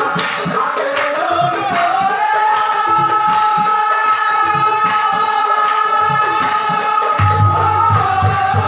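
Nagara Naam devotional singing: a voice holds one long, steady note over rhythmic percussion accompaniment.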